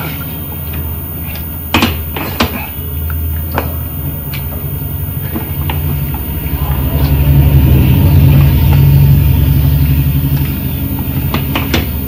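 Wooden spatula stirring chicken pieces in a nonstick frying pan, knocking against the pan a few times, over a loud low rumble that swells about seven seconds in and eases off near the end.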